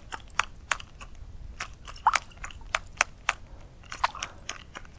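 Irregular sharp clicks and ticks, about three a second, from the fishing reel and rod as a topwater lure is worked back with short twitches.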